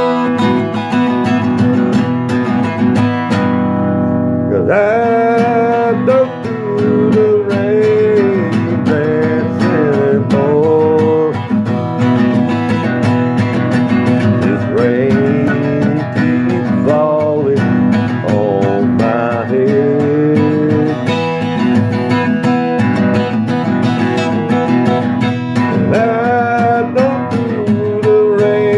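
Acoustic guitar strummed steadily, with a man singing a melody over it from about five seconds in.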